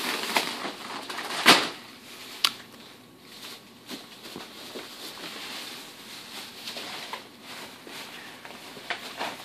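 Groceries being unpacked and stacked by hand: rustling of shopping bags and packages with cardboard boxes set down on a counter. A sharp knock comes about one and a half seconds in and another about a second later, with lighter clicks of packages after.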